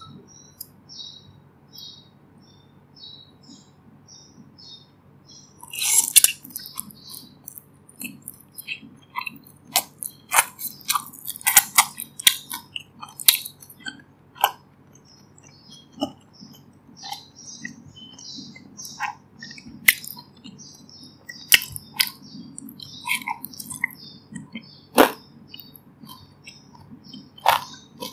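Close-miked eating of fried dumplings: a loud crunchy bite about six seconds in, then repeated crisp crunches and wet chewing. Under it a bird-chirping background track runs as a quick repeated chirp, heard alone for the first few seconds.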